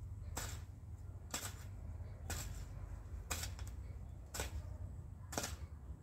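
Long-handled garden hoe chopping into soil in a steady rhythm, about once a second, six strokes in all.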